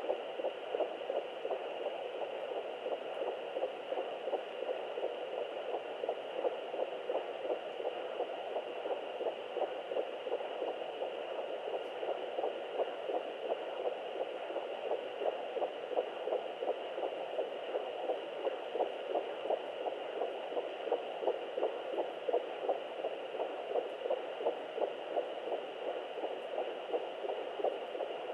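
Fetal heartbeat at 11 weeks through a Sonoline handheld fetal doppler's speaker: a fast, even rhythm of pulses over a constant hiss.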